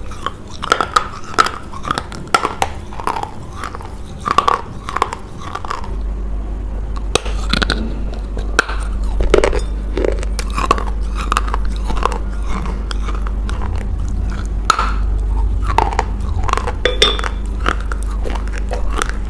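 A person biting and chewing a clay roll close to a clip-on microphone: a quick run of sharp crunches and crackles as the clay breaks between the teeth.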